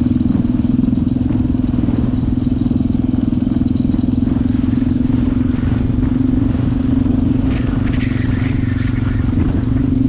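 Quad (ATV) engine running at steady revs under way on a gravel track, heard close up from the rider's seat as an even drone.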